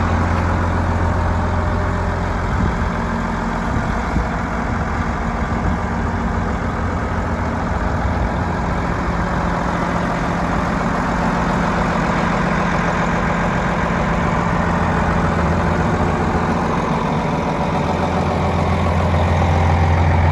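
Diesel engine of a New Holland D180 crawler bulldozer running steadily at idle. Its deep drone is strongest near the start and again near the end, and rougher and less even in between.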